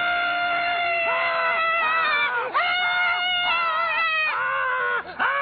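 A high-pitched voice wailing in long, held cries, each lasting a couple of seconds. The cries break and start again twice, at a slightly different pitch each time.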